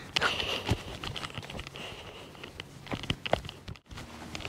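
Faint footsteps on a grassy path with clothing rustle, heard as scattered light clicks and brushing noises. The sound drops out briefly near the end.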